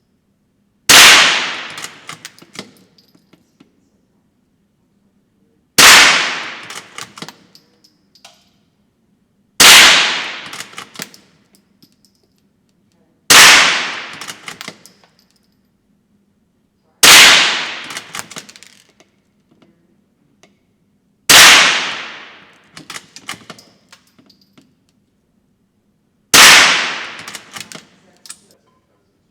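Seven shots from a Marlin 81DL bolt-action .22 rifle, fired one at a time about four seconds apart, each sharp crack echoing away over about a second and a half. Light metallic clicks follow each shot as the bolt is worked.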